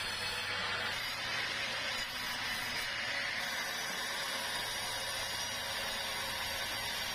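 Sawmill saw running steadily, a continuous machine noise that swells slightly for a couple of seconds near the start.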